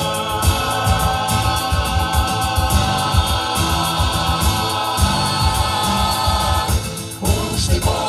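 Folk song on an amplified backing track with a steady bass beat and held chords. Women's ensemble voices come in singing near the end.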